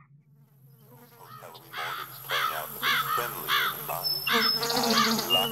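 Insects buzzing and chirping in a rhythmic run of calls, about two or three a second, fading in from silence about a second in over a steady low hum.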